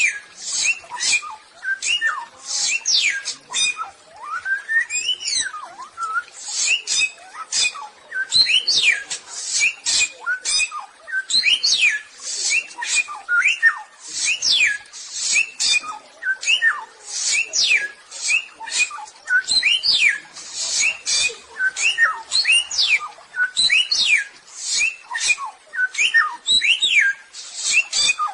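Samyong songbird singing a fast, unbroken run of quick rising and falling whistled notes mixed with short harsh, hissy chatters.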